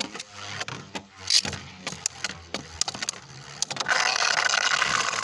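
Two spinning Beyblade Burst tops clashing in a plastic stadium, heard as a run of sharp clicks and knocks. About four seconds in this gives way to a loud, steady scraping whir as a top grinds against the stadium wall.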